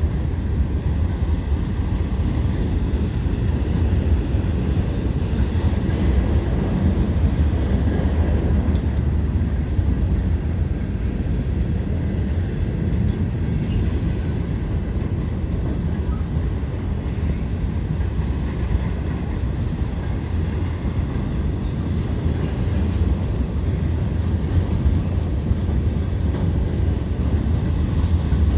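Canadian National mixed freight train cars rolling steadily past in a continuous rumble of wheels on rail. Faint, brief wheel squeals come about halfway through and again a few seconds later.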